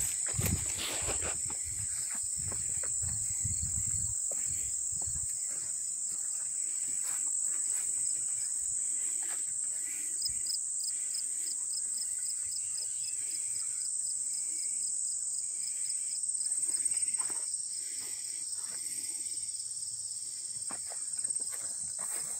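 Steady high-pitched insect chorus of late-summer crickets, with a separate chirping trill of about four pulses a second from around ten seconds in to about sixteen seconds. Footsteps and rustling through grass and brush in the first few seconds.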